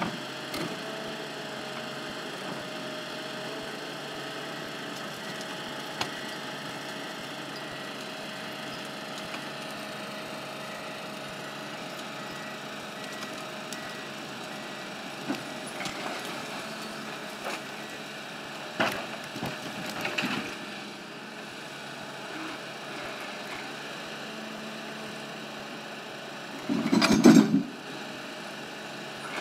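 Ponsse Elephant King forwarder at work: its engine runs steadily while the crane moves, with a thin steady whine that fades out about a third of the way through. Scattered wooden knocks and clunks from the logs and grapple, with one louder, heavier knock near the end.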